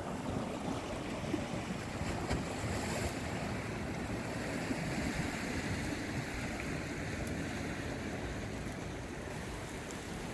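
Sea waves washing against shoreline rocks, a steady surf noise with wind rumbling on the microphone.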